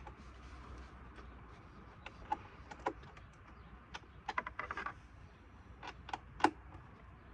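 Scattered light clicks and taps of hands handling small hard parts, with a quick run of them about four seconds in and a sharper click near the end, over a faint low hum.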